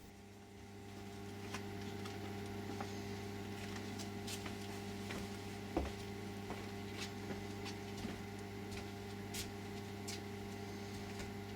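A steady low hum with scattered faint clicks and ticks.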